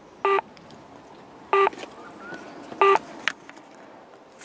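Electronic banking unit of a Monopoly Ultimate Banking game beeping three times, short identical electronic tones about a second and a quarter apart.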